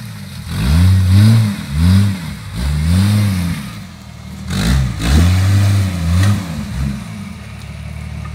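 Off-road SUV's six-cylinder engine revving hard in a series of about seven throttle bursts, each rising and falling in pitch, as the vehicle works its way up a rutted, muddy slope. The revving eases off near the end.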